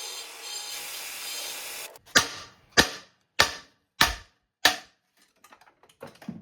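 Five sharp metal blows about 0.6 s apart, banging a seized intake manifold loose on an R53 Mini engine, followed by lighter knocks and clicks. A steady mechanical whirr runs before the blows.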